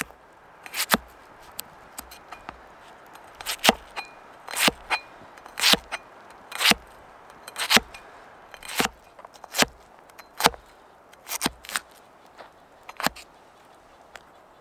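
Cold Steel Viking battle axe blade chopping raw potato against a plastic cutting board: a sharp chop about once a second.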